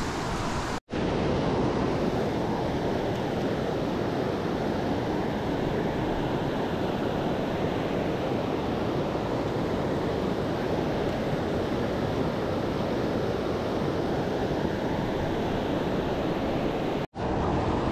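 Whitewater rapids rushing over rock ledges close by: a steady, loud wash of water. It cuts out for an instant about a second in and again near the end.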